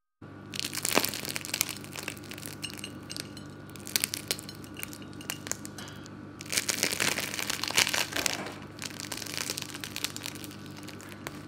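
Crispy Taiwanese donuts being torn apart by hand, the crumb-coated crust crackling and crunching on and off, with crumbs falling onto the plate. A low steady hum runs underneath.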